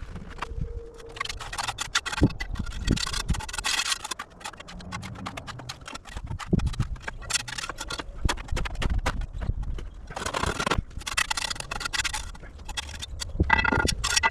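Irregular scraping and knocking of hand tools working wet concrete mix, with sharp taps and gritty scrapes in bursts, while concrete-block cores are filled solid.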